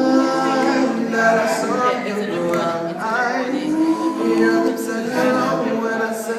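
A cappella vocal group singing in harmony, several voices holding and changing notes together with no instruments.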